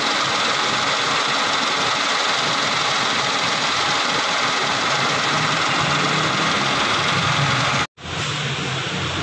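Hyundai Eon engine idling steadily after starting on a single crank, its fuel-pressure hard-start fault apparently cured. The sound drops out abruptly near the end and comes back slightly quieter.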